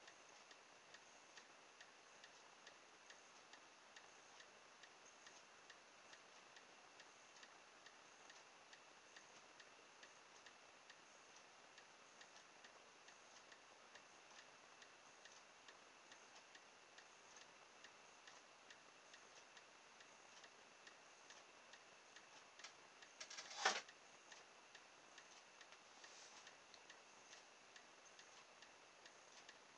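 Near silence with faint, steady ticking throughout, and one short, sharp clack about three-quarters of the way through.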